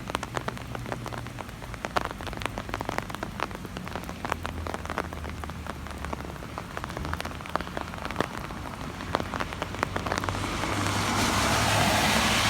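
Thunderstorm rain falling, with many sharp individual drops ticking on a hard surface. In the last couple of seconds it swells into a louder, rushing wash of noise.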